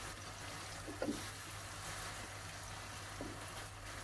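Minced-meat and pepper filling simmering wet in a frying pan with a steady soft sizzle, the tomato liquid still cooking off. A wooden spoon stirs and scrapes the pan about a second in and again near three seconds.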